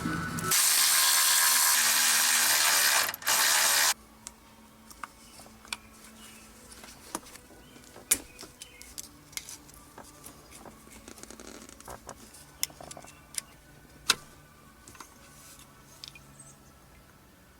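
A loud, even rushing hiss for about three seconds that cuts off suddenly, then scattered sharp clicks and ticks of hand tools on metal, ratchet-like, during work under a vehicle.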